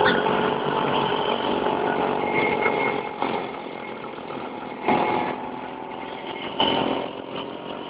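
Vintage Vespa scooters' two-stroke engines running together on the move, with brief louder bursts about five and six and a half seconds in.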